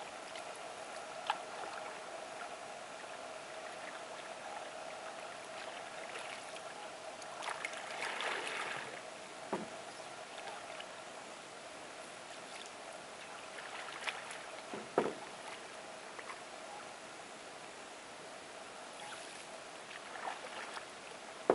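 Faint lake water lapping, with a brief splash about eight seconds in and a few sharp clicks or knocks scattered through, over a faint steady hum.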